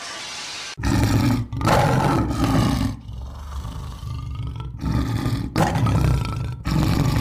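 Loud roaring in a series of long stretches with short breaks between them, starting about a second in.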